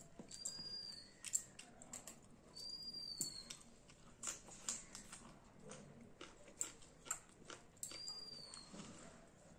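Close eating sounds: chewing and crunching mouthfuls, including raw spring onion stalk, with short wet clicks and crackles of fingers mixing rice. A bird whistles a short, slightly falling note three times in the background.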